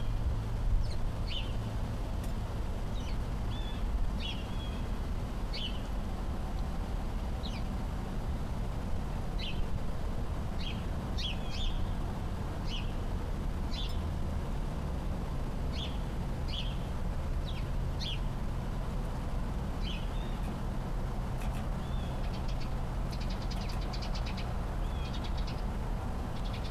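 Small birds chirping in short, scattered high notes every second or two, with a quick run of rapid chirps near the end, over a steady low rumble.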